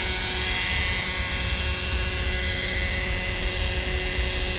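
Hirobo Sceadu RC model helicopter running on its floats on the water, a steady whine made of several constant tones. An uneven low rumble lies underneath.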